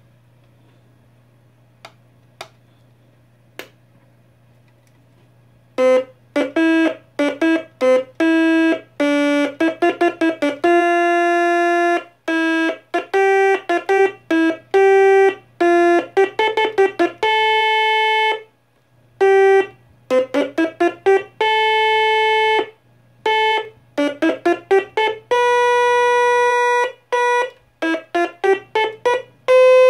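Red toy organ played with a stylus: a simple tune of separate buzzy, steady notes, some quick and some held for a second or two, starting about six seconds in. A low steady hum runs underneath, with a few faint clicks before the tune begins.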